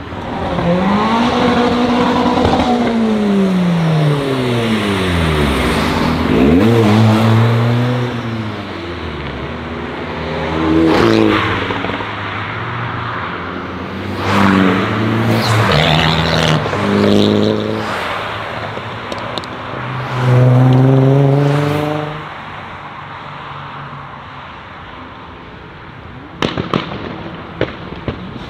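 Several modified cars accelerating hard away one after another, their engines revving up and dropping back with each gear change. Near the end comes a quick string of sharp exhaust pops and crackles.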